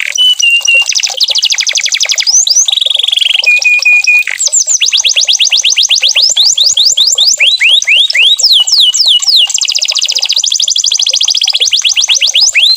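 Domestic canary singing a long, continuous song of rapid trills: fast runs of repeated descending whistled sweeps, broken by short held whistled notes just after the start and again about four seconds in.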